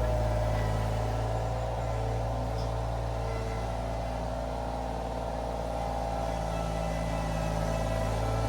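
Iron Rhino IR1200 mini skid steer's engine running steadily under load, easing slightly in level around the middle and coming back up near the end.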